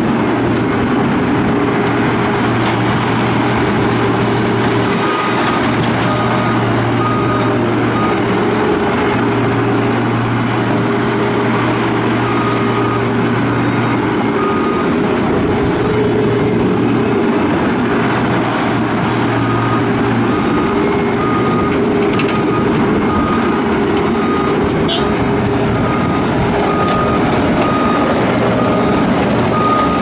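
John Deere 328 skid steer loader's 82 hp turbo diesel running hard as the machine digs and drives, its engine note dipping now and then. A back-up alarm beeps at an even pace, under two beeps a second, from about five seconds in, pausing briefly, then keeps going.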